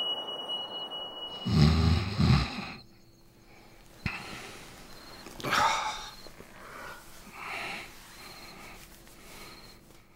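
A man snoring in his sleep: a loud, low snore about a second and a half in, then softer breaths roughly every two seconds, with a sharp click near the middle.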